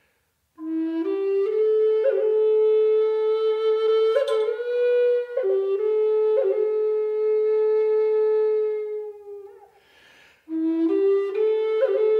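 Background flute music: a slow solo melody of long held notes that step up and down, in two phrases with a short pause for breath about ten seconds in.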